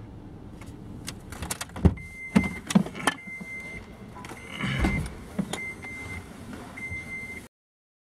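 Knocks, clicks and thuds of someone moving about in a pickup's cab with the door open, handling test equipment, with a thin steady high tone sounding on and off several times. The sound cuts off abruptly near the end.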